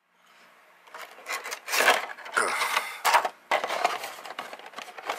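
Cardboard model-kit box being opened and handled: the lid and inner flaps scraping and rubbing against each other in a run of irregular scrapes, loudest in the middle.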